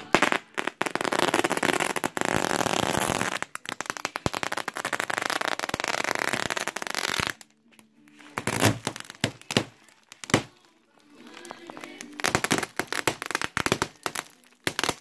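Plastic wrapping on bundles of fiberglass insulation batts crinkling and crackling as it is handled: a dense run of crackle for about seven seconds, then after a short lull several shorter bursts.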